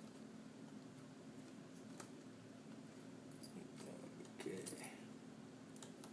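Faint clicks and brief handling scrapes from a small Phillips screwdriver backing a screw out of a laptop screen's hinge bracket, over a steady low hum. The loudest scrape comes about four and a half seconds in.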